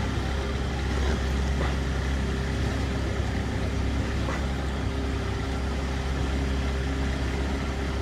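Small boat's engine running at a steady speed: a low, even drone with a faint steady hum above it.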